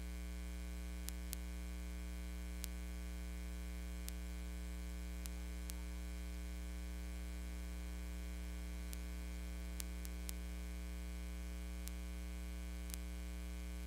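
Steady electrical mains hum with a stack of overtones, dotted with a few faint clicks.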